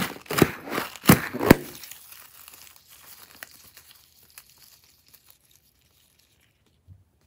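Sharp crinkling crackles as a balloon stuffed with dry confetti sprinkles is squeezed and emptied, loudest for about a second and a half, then fainter crackles that die away into near silence.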